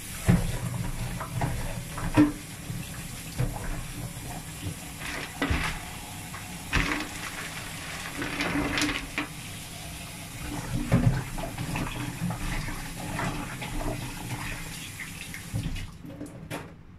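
Kitchen tap running into a stainless steel sink while mushrooms are rinsed under it by hand, with occasional knocks and clatter of handling in the sink. The running water stops about a second before the end.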